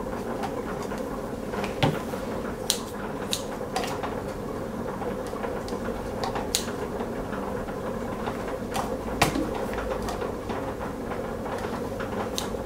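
Scattered light clicks and taps from dividing dough: kitchen scissors snipping and dough pieces set on a digital kitchen scale, over a steady low hum.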